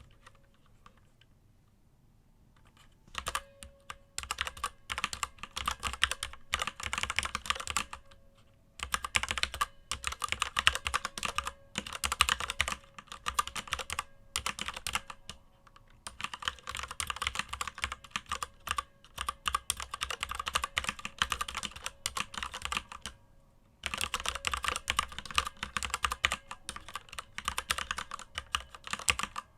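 Typing on a mechanical keyboard with unlubricated Cherry MX Red linear switches: rapid runs of key clacks in bursts of several seconds with short pauses between, starting about three seconds in.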